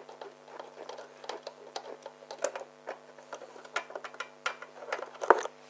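Irregular light clicks and taps of a tubular box spanner and screwdriver shaft working a spark plug loose and out of an inverter generator's engine, with a sharper knock about five seconds in.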